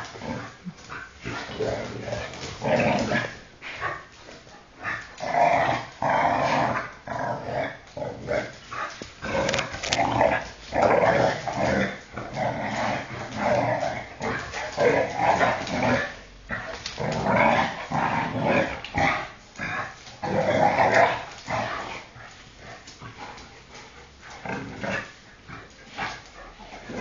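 Two shar-pei dogs play-fighting, growling in repeated irregular bursts, which grow quieter and sparser over the last few seconds.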